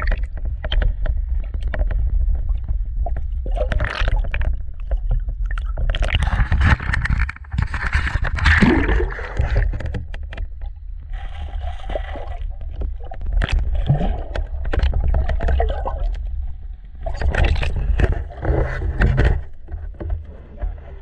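Muffled underwater sound picked up by a GoPro through its waterproof housing: a steady low rumble with irregular gurgles, sloshes and knocks of water moving around the camera.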